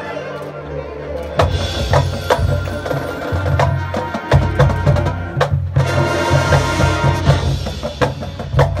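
Marching band playing: sustained brass chords, then the percussion section comes in about a second and a half in, with many sharp drum and wood-block hits over the held low brass.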